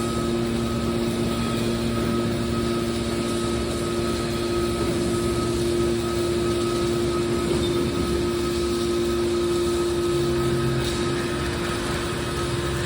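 Hydraulic scrap metal baler press running: a steady mechanical hum with a constant, unchanging pitch.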